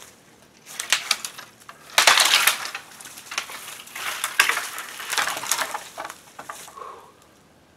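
Twigs crackling and snapping and dry leaves rustling as a cut sapling is pulled down and dragged through brush. The loudest crackle starts about two seconds in, and the sound dies away near the end.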